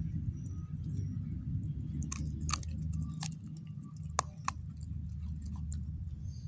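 A beagle chewing and gnawing a raw chicken breast bone, with a run of sharp crunches and cracks in the middle as the bone gives way. A steady low hum runs underneath.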